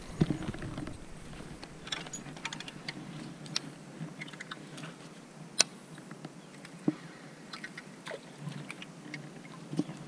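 Irregular light clicks and ticks from a baitcasting reel being handled, with a couple of sharper clicks near the middle.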